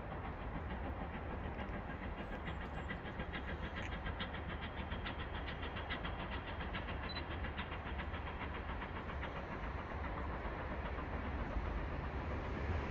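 Bulleid West Country class steam locomotive 'City of Wells' approaching under steam, a fast, even exhaust beat over a steady rumble, growing a little louder near the end.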